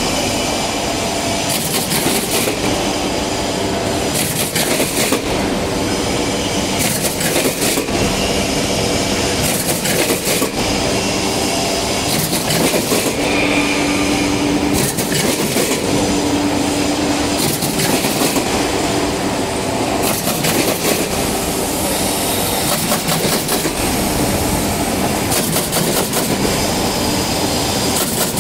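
Automatic corrugated-cardboard partition assembly machine running: a steady fast clatter of metal feeders and cardboard strips, with a regular hiss every couple of seconds.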